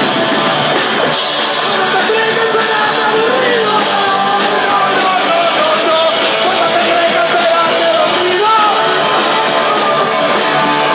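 Punk rock band playing live, with a singer's vocal over the full band.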